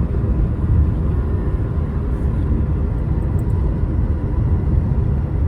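Loud, steady low rumble of a car in motion, heard from inside the cabin.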